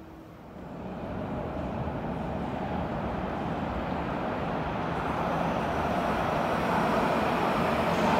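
Subway train approaching through the tunnel into an underground station, a rumble and rushing hiss that starts about half a second in and grows steadily louder.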